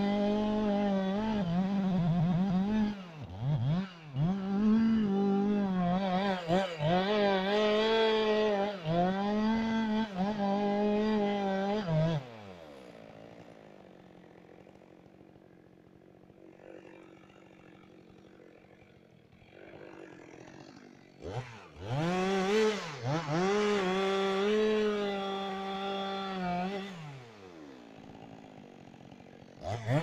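Two-stroke chainsaw at full throttle cutting a felled tree, its pitch dipping again and again as the chain bites. The run lasts about twelve seconds, then the engine winds down. It revs up to cut again for about five seconds some twenty-two seconds in, winds down, and revs briefly once more at the very end.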